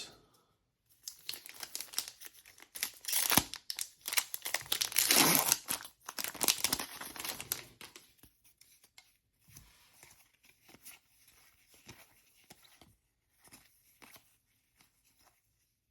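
Trading-card pack wrapper being torn open and crinkled, loudest in the first half, then softer rustling and light clicks as the cards are handled.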